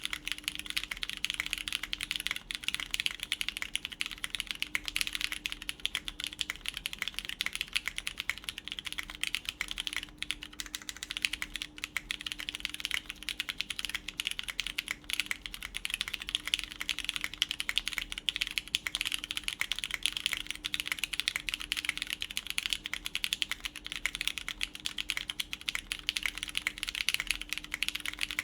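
Continuous typing on a full-copper Machina Cloudnine R2 mechanical keyboard with lubed Cherry MX Brown tactile switches, a PEI plate and GMK keycaps: a dense, steady stream of keystrokes.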